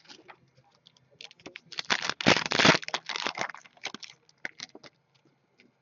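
Trading cards and their packaging being handled: a run of rustling, sliding and crinkling, loudest about two seconds in, then a few light clicks.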